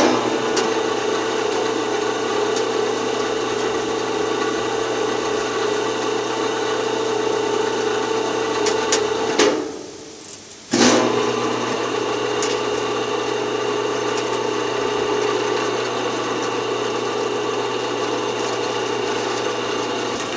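Electric hoist motor running steadily while lifting a steel I-beam held in a beam clamp. It stops about nine and a half seconds in and starts again about a second later.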